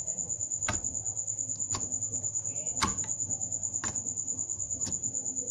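Slime being squeezed and stretched by hand, giving sharp clicking pops about once a second. A steady high pulsing chirp like a cricket runs underneath.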